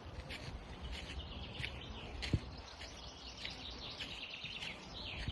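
Small birds chirping and twittering repeatedly over a low steady outdoor rumble, with one short thump a little over two seconds in.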